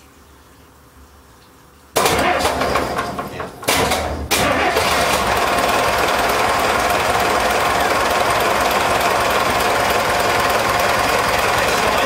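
Barge engine starting: it fires about two seconds in, drops out briefly twice over the next couple of seconds, then catches and runs loud and steady.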